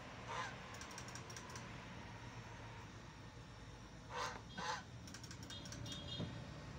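White domestic goose at a shallow puddle of tap water, making a few short, soft sounds: one about half a second in and two close together a little past the middle. Faint clicks and a low steady hum lie underneath.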